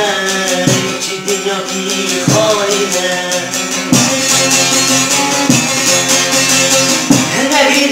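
Bağlama (saz), a long-necked plucked lute, played in a fast strummed instrumental passage of a Kurdish folk melody.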